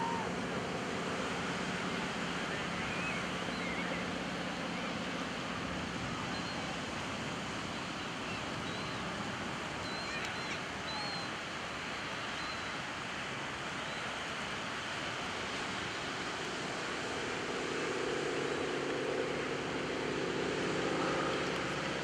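Distant drone of an SNJ-5 Texan's Pratt & Whitney R-1340 Wasp radial engine under a steady rush of surf and wind, the engine growing louder in the last few seconds as the aircraft comes nearer.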